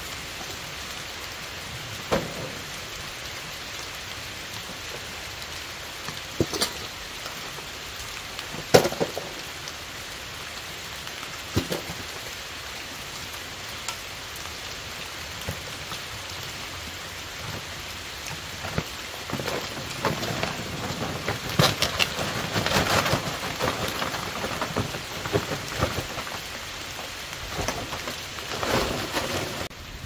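Steady rain falling, with a few sharp knocks and, in the second half, a busier stretch of clattering and rustling as camp gear is handled and set down.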